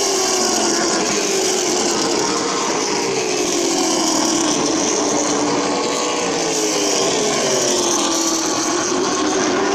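Stock car engines racing around a short oval track, their pitch rising and falling in slow waves as the cars speed up and ease off around the circuit.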